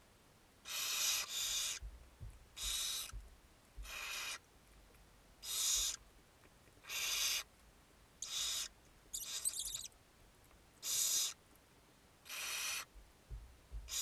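Barn owl nestlings begging with repeated hissing, snore-like calls, each about half a second long and coming roughly every second and a half. One call about nine seconds in is scratchier.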